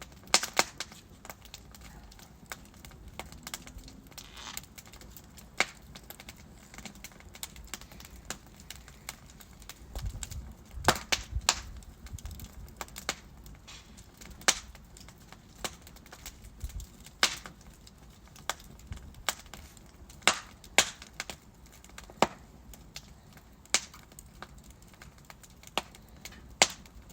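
Burning wood logs crackling in a fireplace: irregular sharp pops and snaps, a few much louder than the rest, over a soft hiss and low rumble of the flames.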